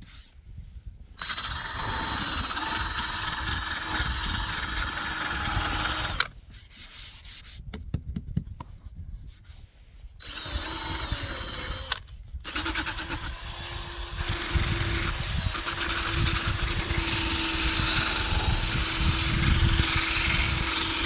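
Electric power sander running against cured epoxy and chopped-strand-mat fiberglass, knocking down high spots and taking off the gloss. It starts about a second in, stops for a few seconds twice, and runs louder over the last several seconds.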